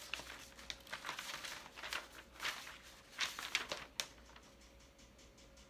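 Packaging being handled, rustling and crinkling in irregular bursts. A sharp click about four seconds in, then only faint ticks.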